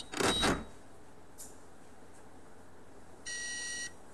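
A short burst of noise near the start, then an electronic beep of under a second, about three seconds in.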